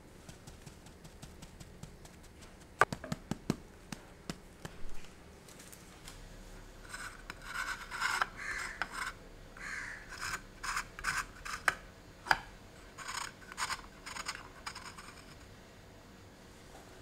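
Pen or marker scratching on eggshells in runs of short strokes, drawing faces on the eggs. Before that, a few light clicks of eggs being handled in a clear plastic egg tray.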